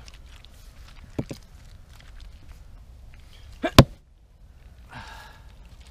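A Hultafors axe bites into a soft, long-dead log with one sharp, loud chop from an over-the-shoulder swing, about four seconds in, just after a short grunt of effort. A lighter knock comes about a second in, and a breathy exhale follows the chop.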